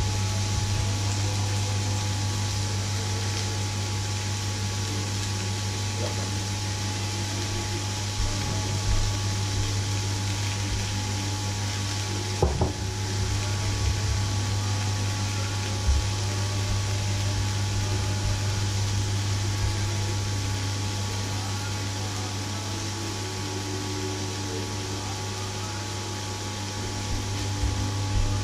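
Steady low machine hum over an even hiss, from chicken breasts frying in a cast-iron grill pan on the hob. A couple of short knocks about halfway through.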